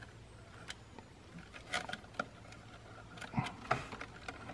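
Faint handling sounds of a plastic wiring harness and connector being tucked into place by hand: a few scattered light clicks and rustles.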